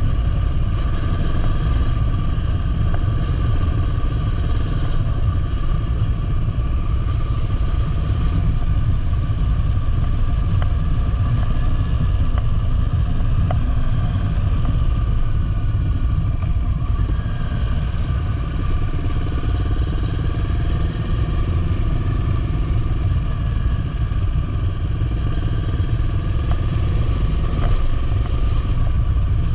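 Motorcycle engine running on the move, its pitch drifting gently up and down over a loud, steady low rumble.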